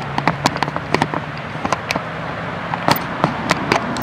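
Footsteps through long grass: irregular crackling and rustling clicks over a steady background hiss.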